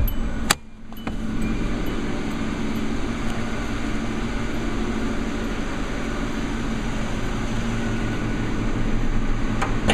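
2004 Hyundai Accent's 1.6-litre four-cylinder engine idling steadily. A sharp click about half a second in comes from the hood release lever being pulled, and another click follows near the end.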